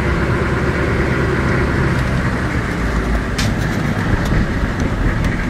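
Steady engine and road noise heard from inside the cab of a slowly driving vehicle, with a light click about three and a half seconds in.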